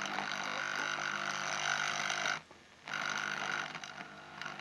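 Steady electrical buzz from a small speaker fed by a mains transformer through a volume potentiometer. The buzz is being turned down and up by hand: it cuts out briefly about halfway, comes back, then fades down near the end.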